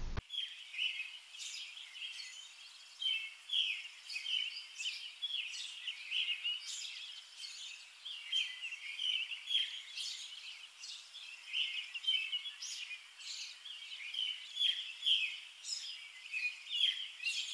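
Birds chirping: many short, overlapping high calls in a steady, busy chorus.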